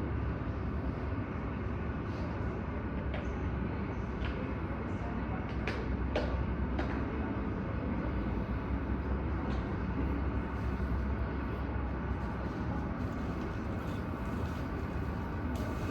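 Airport terminal ambience: a steady low rumble, broken by a few short clicks and knocks.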